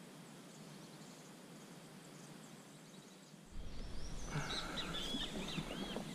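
Faint steady outdoor ambience, then from about three and a half seconds in a louder scene with a low rumble and many birds chirping and calling from the riverbank.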